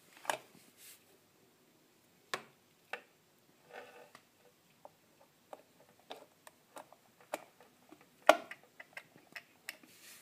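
Plastic plug clicking and knocking against a wall socket as it is worked into the outlet, its earth pin broken off so it fits the old two-pin socket. Scattered sharp clicks, the loudest about eight seconds in as the plug goes home.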